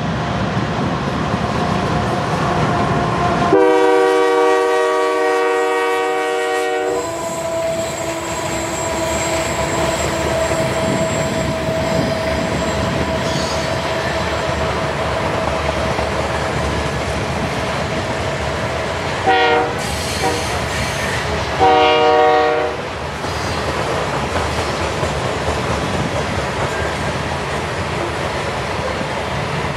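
Loaded freight train led by diesel locomotives rolling past, with the locomotive horn sounding one long blast about four seconds in and two shorter blasts around twenty seconds in. A thin steady tone rings for several seconds after the first blast.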